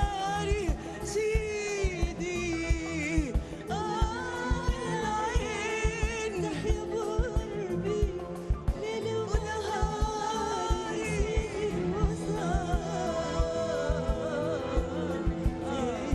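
Two women singing an Arabic song as a duet with a live Arabic orchestra, over a steady percussion beat.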